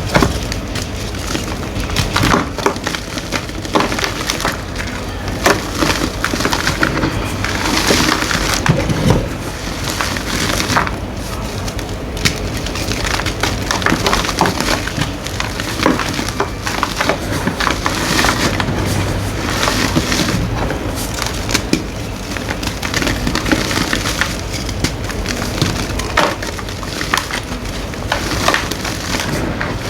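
Green gym chalk being crushed and crumbling, a continuous dense crunching full of small sharp crackles.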